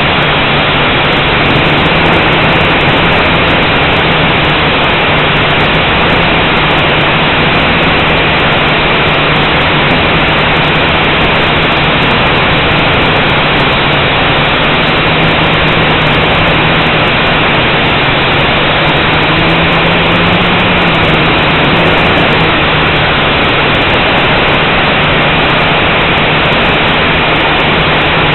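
Blade 180 quadcopter's motors and propellers in flight, heard through its onboard camera: a loud, steady rushing hiss over a low hum that wavers in pitch and rises briefly about twenty seconds in.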